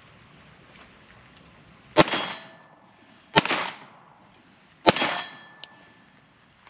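Three pistol shots from a Springfield Armory 1911 DS Prodigy in 9mm, about a second and a half apart, each sharp report followed by a short metallic ring.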